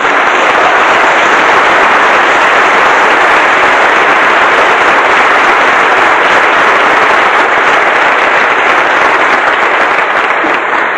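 Audience applauding: a long, steady round of clapping that eases off near the end.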